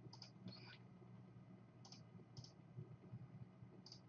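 Near silence with a few faint computer mouse clicks, spaced irregularly, over a low steady hum.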